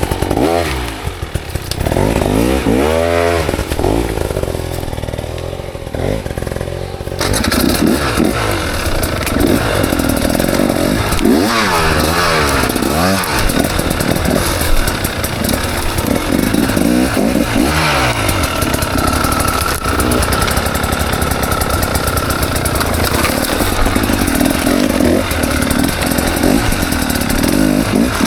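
KTM 300 XC two-stroke dirt bike engine being ridden off-road, revving up and falling back again and again as the throttle is worked. A steady rushing noise joins it about seven seconds in.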